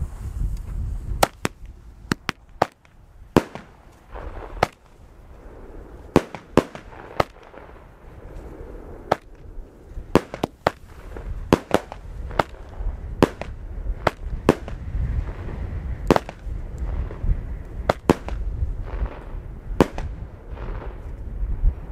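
Fireworks going off: a long run of sharp bangs at uneven intervals, roughly one a second on average, some in quick pairs, over a steady low rumble.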